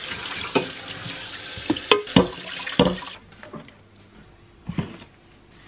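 Kitchen tap running with dishes clinking and knocking as they are rinsed and handled. The water shuts off about three seconds in, and a few quieter knocks of dishes follow.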